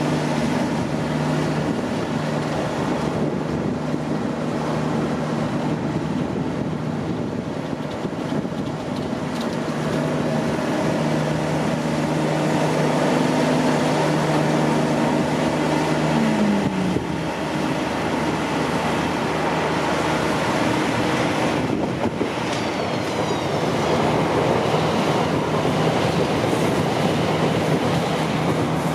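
Class 345 Aventra electric multiple unit running along the approach to the tunnel portal: a steady hum of several low tones from its traction equipment over wheel-on-rail noise, with one tone gliding down a little past halfway.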